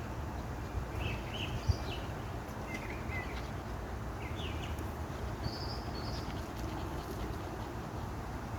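Small birds chirping in short calls now and then over steady outdoor background noise, with a single faint knock near the start.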